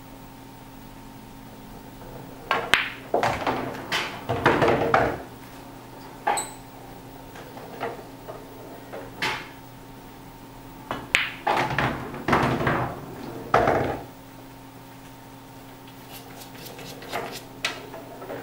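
Pool balls clacking on a pool table: sharp single knocks of cue on ball and ball on ball, and two runs of quick rattling knocks as balls are pocketed, over a steady low hum.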